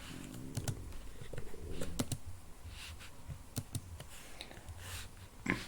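Computer keyboard keys being pressed: a dozen or so irregular, separate clicks.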